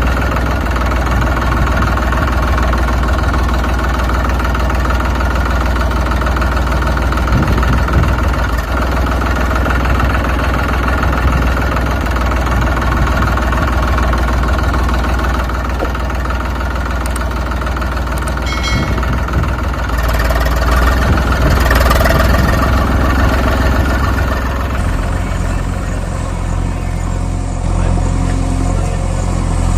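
Engine running steadily at idle, a tractor or excavator engine sound; it changes character about 25 seconds in.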